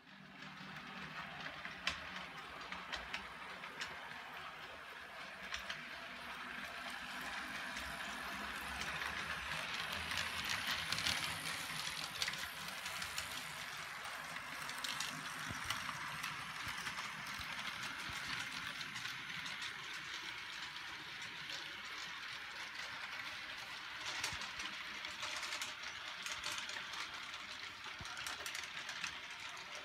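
HO scale model train running on the layout's track: a steady rolling hiss with scattered light clicks.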